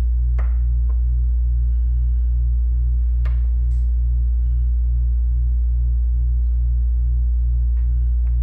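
Air-conditioning unit running: a steady low hum with a throb that pulses about two to three times a second, plus a couple of faint clicks.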